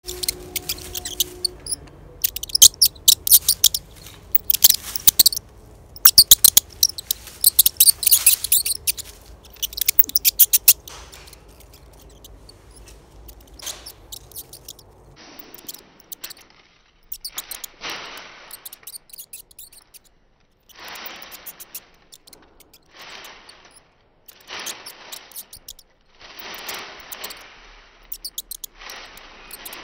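Rat squeaking: loud clusters of rapid, high-pitched squeaks through the first ten seconds or so, then quieter, rougher bursts about a second long every couple of seconds.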